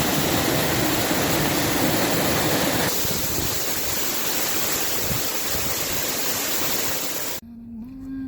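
Loud, steady rush of falling water from a waterfall, cutting off abruptly about seven seconds in.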